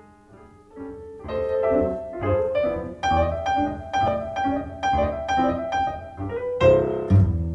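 Music from Polk Audio Reserve R200 bookshelf speakers: a jazz piano intro that starts soft, swells about a second in, then plays repeated chords about twice a second, with the double bass coming in near the end.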